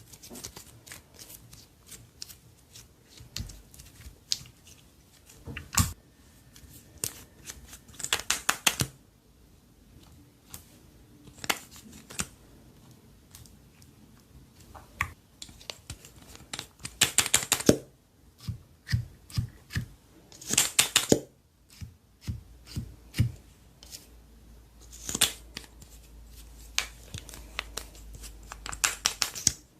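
Slime being squeezed, stretched and mixed by hand, giving scattered clicks and several bursts of rapid crackling pops.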